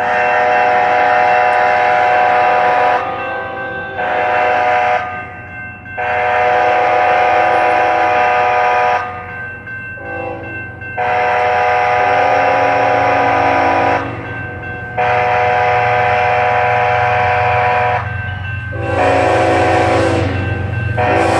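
Union Pacific diesel locomotive's air horn sounding a series of loud blasts, mostly long with a short one among them: the grade-crossing warning as the train approaches. The locomotive's engine hum rises underneath and grows louder near the end.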